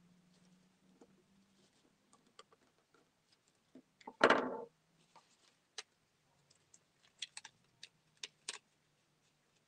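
Scissors set down on a table with one short, loud clatter about four seconds in, amid light clicks and ticks of a paper straw and paper being handled.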